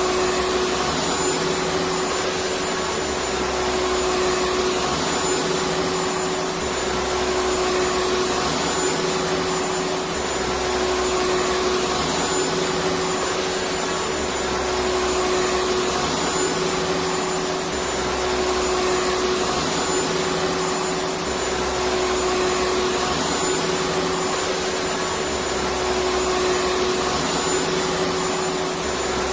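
Vacuum cleaner running continuously: a steady motor hum and rush of air with a thin high whine. A low throb comes and goes about every two seconds.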